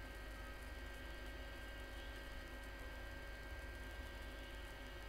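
Steady low electrical hum with a few faint, steady high tones over a light hiss, unchanging throughout.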